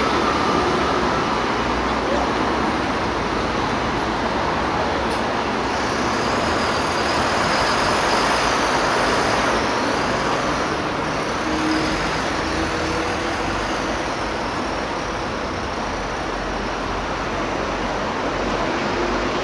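Steady, even background noise with no distinct events, with faint distant voices here and there.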